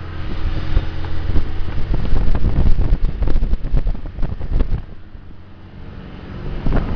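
Motorboat underway at speed: wind buffeting the microphone over the steady drone of its twin MerCruiser 1.7 engines and the rush of the wake. It drops quieter for a moment about five seconds in.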